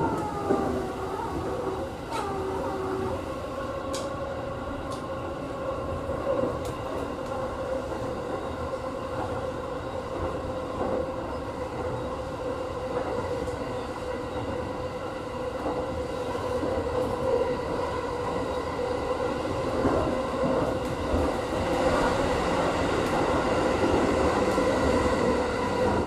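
Interior running noise of a JR East E233 series electric train at speed: rumble of wheels on rail under a steady motor whine, with brief sliding tones in the first few seconds and a few sharp clicks. It grows somewhat louder in the last third.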